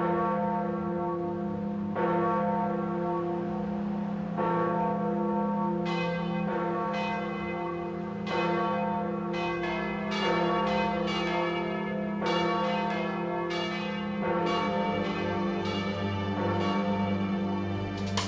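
Church bells ringing over a steady low hum. A few slow strikes come about two seconds apart, then from about six seconds in the strikes come faster and higher bells join in.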